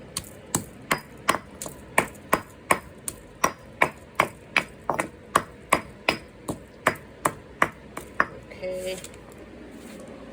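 Pestle pounding garlic in a stone mortar, with sharp, even knocks about three a second that stop about 8 seconds in.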